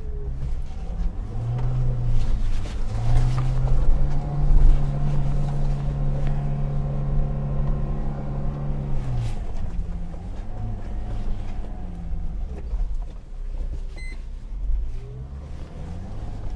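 A 2.4-litre turbodiesel 4x4 engine pulling at crawling speed in low-range four-wheel drive over rough ground. The revs rise about a second and a half in, hold steady for several seconds, and drop back about nine seconds in. After that the engine runs at low, wavering revs over a constant low rumble.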